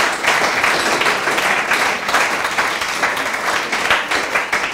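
A small audience applauding, many hands clapping at once, easing off slightly near the end.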